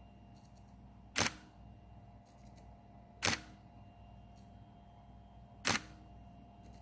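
Camera shutter firing three times, about two seconds apart, over a faint steady hum.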